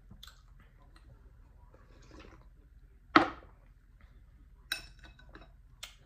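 Metal spoon against glass bowls: one loud knock about three seconds in, then a few sharp, briefly ringing clinks as the spoon scoops from the bowls.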